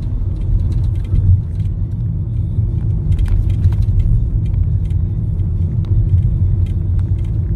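Steady low road and engine rumble inside the cabin of a moving car at road speed, with scattered faint clicks, most of them about halfway through.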